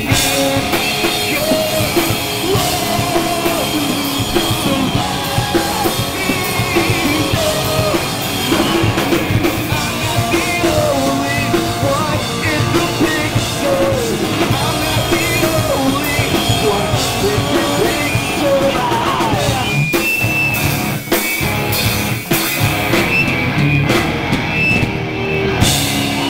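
Rock band playing live and loud: drum kit and electric guitars, with a singer's vocals over them.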